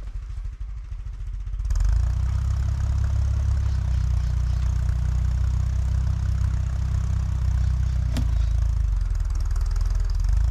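Tractor engine running, throttled up about two seconds in and then held at high revs under load as it pulls on the stump. There is one sharp click a little before the end.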